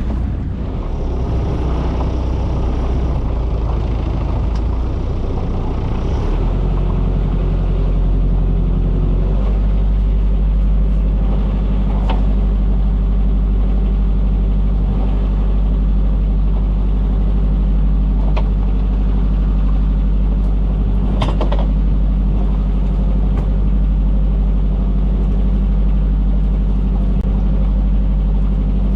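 Fishing boat's engine running steadily under way. It picks up revs about six seconds in and settles into a louder, even drone. A few sharp knocks come now and then.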